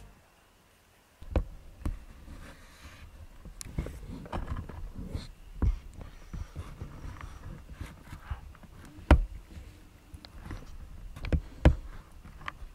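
Quiet night ambience with scattered soft knocks, clicks and rustles close to the microphone, the loudest about nine seconds in and two more near the end; the first second is near silent.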